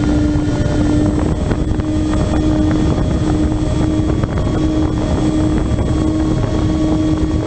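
Motor and propeller of an FPV model aircraft running at a steady pitch, with strong wind rush on the onboard microphone.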